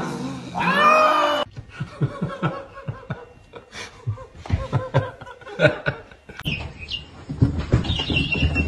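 A cat's loud drawn-out meow lasting about a second, then after an abrupt cut a quieter stretch of scattered short clicks and brief snickering laughter.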